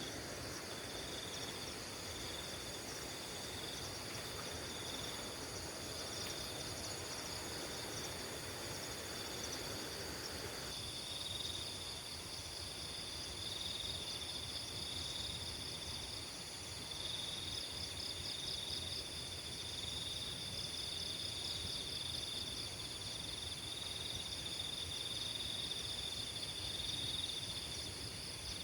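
Crickets and other insects chirping in several layers at once: a repeated chirp, a fast pulsing trill and a steady high buzz. Beneath them is a soft rushing background that drops away abruptly about eleven seconds in.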